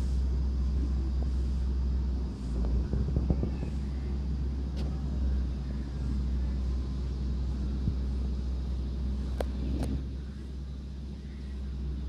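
Steady low outdoor rumble, with a few light clicks.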